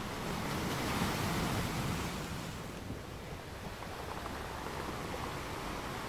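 Sea surf: waves washing in with a steady rush, swelling about a second in and then easing off.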